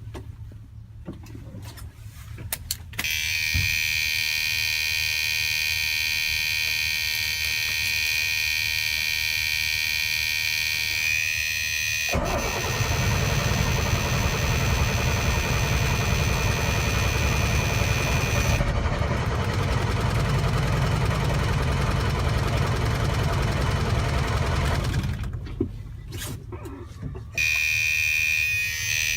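1999 Freightliner diesel truck engine hard-starting: a steady high whine starts a few seconds in, turns at about twelve seconds into a louder, rough, fast-pulsing rumble, drops off suddenly about twenty-five seconds in, and the whine returns near the end. The hard start is a symptom of a failing fuel pressure sensor.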